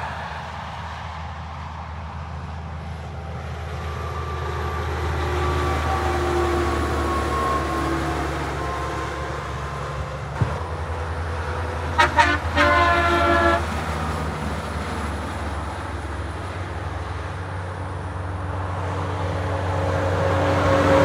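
Kenworth semi-trailer trucks passing on a motorway, their engines and tyres droning and swelling as they go by. About halfway through, a truck's air horn sounds two quick toots and then a longer blast of about a second and a half. Another truck draws closer near the end.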